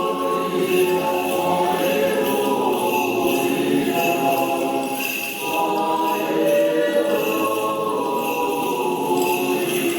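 Orthodox church bells ringing a festal peal: several bells of different pitches sound together and keep ringing on, with a high bell striking about once a second.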